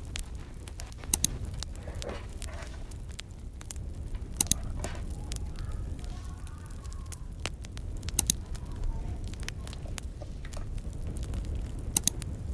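Wood fire crackling, with small clicks throughout and a louder sharp pop every few seconds over a low steady rumble.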